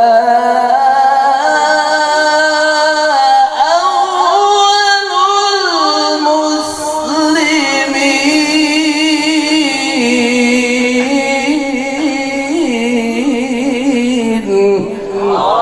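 A man's voice in melodic Quran recitation (mujawwad style), holding long ornamented notes with wavering pitch and melismatic runs.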